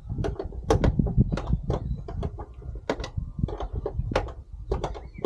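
Irregular knocks and clunks, about a dozen in a few seconds, over a low rumble: a car door being handled and worked into place on its hinges.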